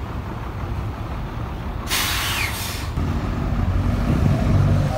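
DINA CATOSA Sansón bus with its engine running, a rear engine that its owner's admirer takes for a Mercedes. About two seconds in, a sharp air-brake hiss lasts under a second, and after it the engine grows louder over the last two seconds.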